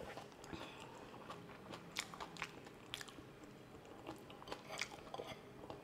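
A person chewing food close to the microphone, with irregular soft wet smacks and clicks of the mouth.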